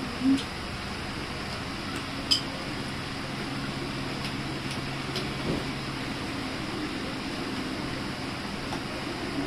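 Steady whir of an electric fan with a low hum under it, and a few light clicks of a fork on the grill pan.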